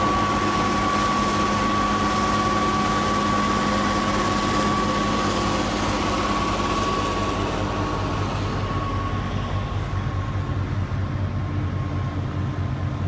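Westa W900 snow blower on a Fendt tractor running and throwing snow: a steady high whine from the blower and a hiss of blown snow over the tractor's diesel engine. About eight seconds in the whine and hiss fade, leaving mainly the low engine hum.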